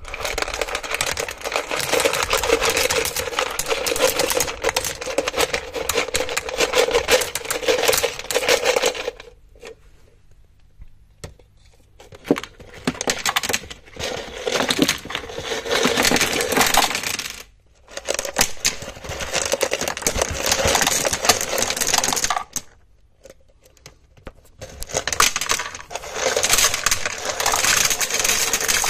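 Small stones clattering against one another in dense runs of clicks, in four long spells with short pauses between.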